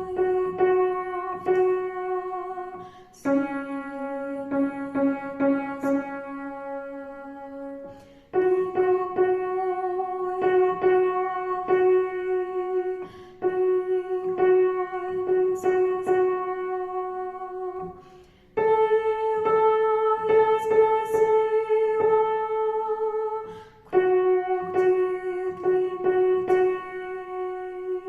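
Instrumental music on a keyboard instrument: long held melody notes over a repeated chord accompaniment, in phrases a few seconds long that fade before the next begins.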